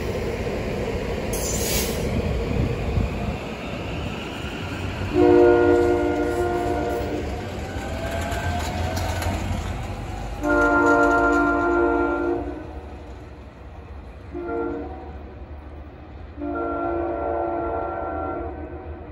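SEPTA Silverliner IV electric commuter train rolling past, then its multi-tone horn sounding four blasts, long, long, short, long: the grade-crossing warning signal.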